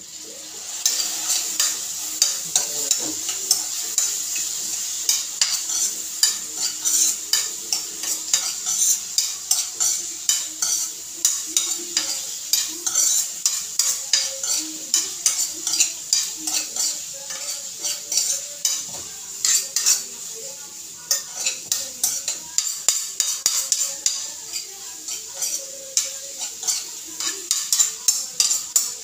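Diced food frying and sizzling in a frying pan while a spoon stirs it, with many quick clicks and scrapes of the spoon against the pan over a steady sizzle that starts about a second in.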